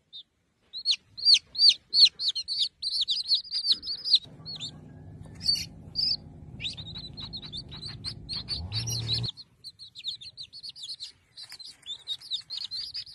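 Baby chicks peeping: a quick, near-continuous run of high, short cheeps that slide down in pitch. A quieter low steady hum sits underneath for a few seconds in the middle and stops suddenly.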